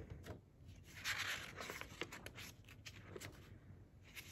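Faint rustling of paper and soft clicks as a picture book's cover and pages are handled and opened.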